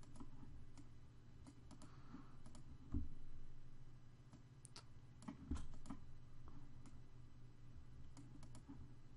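Scattered clicks of a computer mouse and keyboard at a desk, over a steady low electrical hum.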